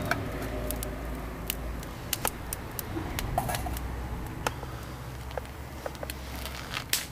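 Kindling crackling in a small lit wood-burning stove: irregular sharp pops and ticks over a low rumble that fades near the end.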